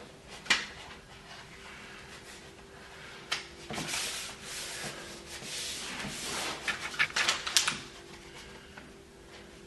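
Hand-handling noises of wood veneer being laid on a sill: scattered light ticks and taps, with a stretch of rustling in the middle as the adhesive backing strip is peeled away. A faint steady hum lies underneath.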